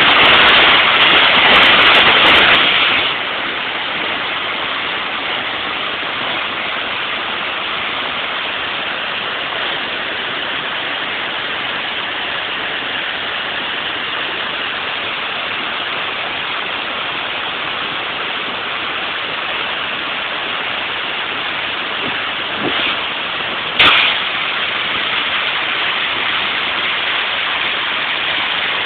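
Dzhurin cascade waterfall: water pouring over the rock steps in a steady, loud rush, louder for the first three seconds. There is a single short knock late on.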